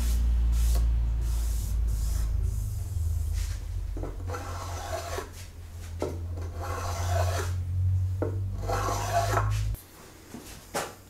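A small hand tool rasping along the edge of a wooden board in three long strokes of about a second and a half each, over a steady low hum that cuts off suddenly near the end.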